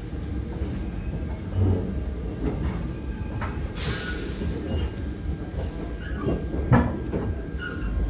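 Korail 311000-series electric multiple unit with a Toshiba GTO-VVVF drive, heard from inside the car as it runs out of the station: a steady low rumble of the car, with wheels knocking over rail joints and points several times and faint tones from the traction inverter. A brief hiss comes about four seconds in.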